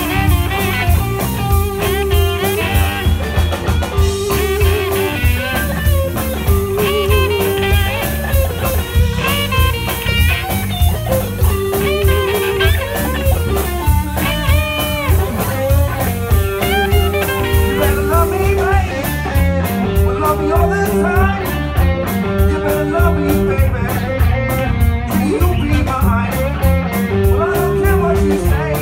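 Live blues band playing instrumental: electric guitar lines with bent notes over bass guitar and drum kit, with a steady beat.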